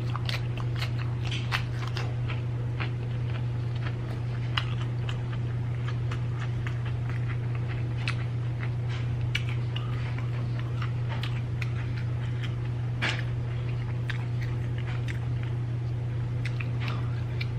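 Close-up chewing and crunching of crispy fried chicken: irregular wet crackles and crunches, with a sharper one about thirteen seconds in. A steady low hum runs underneath.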